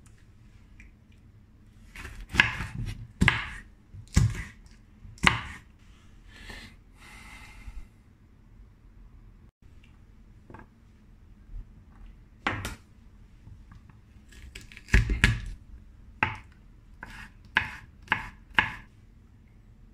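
Kitchen knife chopping on a bamboo cutting board, cutting a red pointed pepper and garlic cloves: sharp single chops and short runs of strokes, coming in irregular groups with pauses between.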